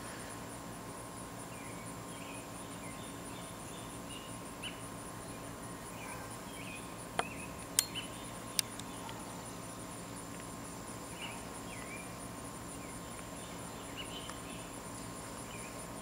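Steady high-pitched, finely pulsing insect trill of the kind crickets make, with faint short chirps scattered over it. A few sharp clicks come near the middle.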